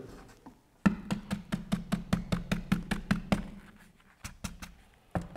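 Bosch EXPERT foam hand-sanding block knocked repeatedly against a wooden worktop in a rapid run of sharp taps for about three seconds, with a few more near the end. This shakes out the sanding dust caught in the foam pad once the mesh sanding sheet is off.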